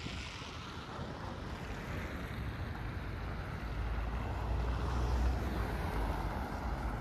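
Street ambience of road traffic and wind buffeting the microphone: a steady rush with a low rumble that swells from about four seconds in and eases off near the end.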